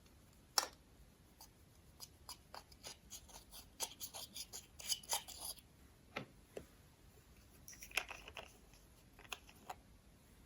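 Slime being worked by hand, giving a scattering of short sticky clicks and crackles, densest between about two and five and a half seconds in.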